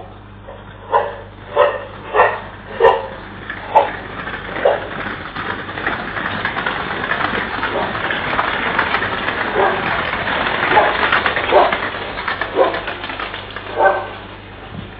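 A dog barking repeatedly, about a dozen barks: a quick run of them in the first few seconds and more near the end, with a rushing noise swelling in between. A steady electrical hum lies underneath.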